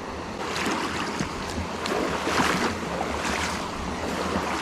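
Legs wading through a shallow river, water sloshing and splashing with each stride, roughly once a second over the steady rush of the current. Some wind noise on the microphone.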